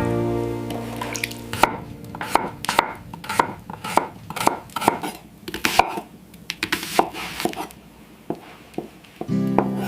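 Knife chopping on a cutting board: a run of sharp, irregular cuts, roughly two a second.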